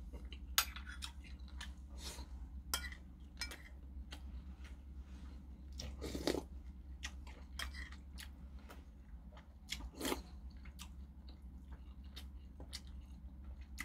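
Close-up mouth sounds of a person eating saury kimchi stew from a metal spoon: chewing and sipping, with many short sharp clicks scattered throughout.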